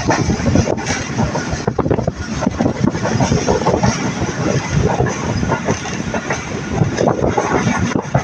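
Passenger train running, heard from aboard: a continuous rumble of wheels on the rails with steady rattling clatter.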